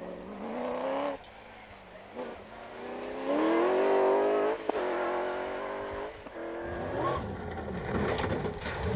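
Hill rally car's engine under hard acceleration. It rises in pitch through the gears, breaking off and climbing again at each of several gear changes, and is loudest near the middle.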